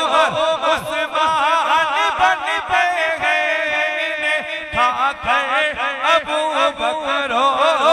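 Male voice singing a naat in a chanting style, with rapid wavering melismatic runs that rise and fall without pause. A steady low drone is held underneath.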